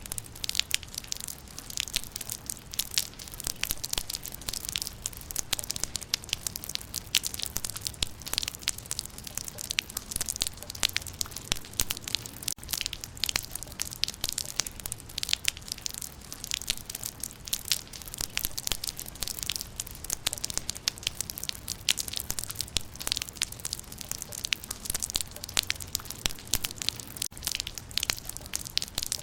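Rain falling on leaves: a steady, dense patter of many small irregular drop ticks.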